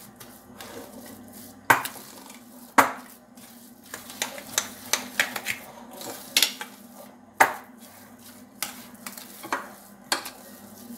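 Metal fork stirring and mashing a thick potato mixture in a glass bowl, with irregular sharp clinks and scrapes of the fork against the glass.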